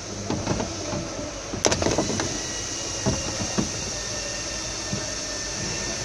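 Scattered sharp clicks and knocks from hand work at the open front door of a Toyota Prado during a door stopper (check strap) replacement, loudest as a quick cluster about a second and a half in, over a steady workshop hiss.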